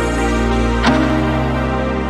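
Runway music: sustained electronic chords, with a sharp percussive hit and a change of chord a little under a second in.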